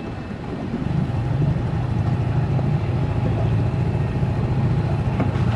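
Motorboat engine running steadily, getting louder about a second in.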